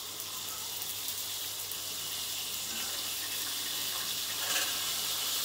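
Beef frying in a wok under a glass lid: a steady, muffled sizzling hiss that slowly grows louder.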